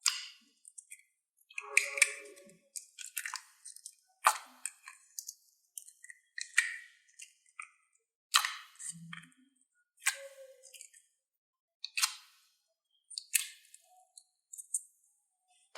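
Slime being pressed and pulled by hand, giving sharp, sticky clicking pops about every second or two.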